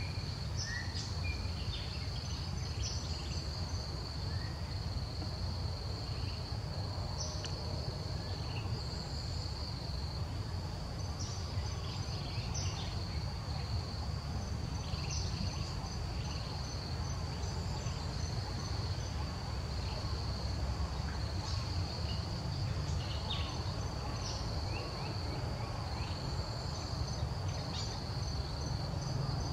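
Insects droning steadily at one high pitch, with a few short bird chirps, over a steady low rumble.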